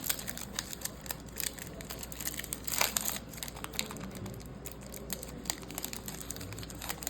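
Foil trading-card pack wrapper crinkling as it is handled and opened, with the cards shuffled in the hands: a run of irregular crackles and clicks, loudest about three seconds in.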